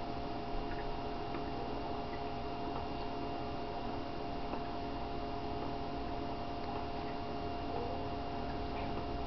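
Steady electrical hum of aquarium equipment, holding a few fixed tones over a low rumble, with a few faint scattered ticks.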